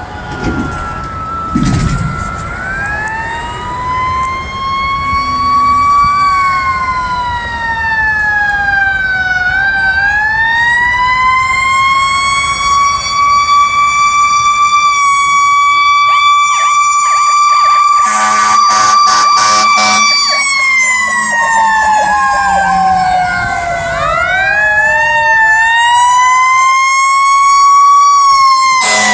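Fire engine and ladder truck sirens, a Federal Q mechanical siren and PowerCall electronic sirens, wailing together: two siren tones glide up and down against each other and hold high in the middle. About 18 seconds in there is a quick run of air horn blasts, and another comes near the end.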